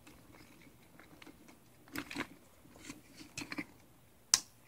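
Faint handling noises from hands fiddling with wires and small plastic parts: scattered rustles and light clicks, with a sharp click near the end.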